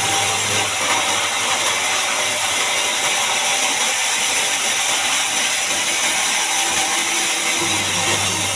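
Sawmill band saw cutting through a large mahogany log: a loud, steady hissing whine. A low hum from the machine drops out early on and comes back near the end.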